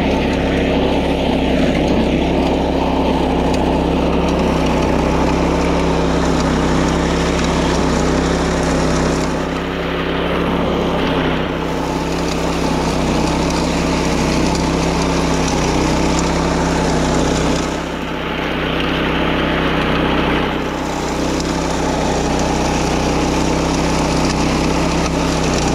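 Small engine of a walk-behind wing mower running steadily at working speed. It dips briefly in loudness and brightness twice, about ten and eighteen seconds in.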